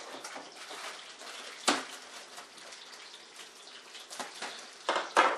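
Steady hiss of bacon frying in a pan, with one sharp knock about two seconds in and a few quick crinkles near the end as a plastic bag of peas is opened.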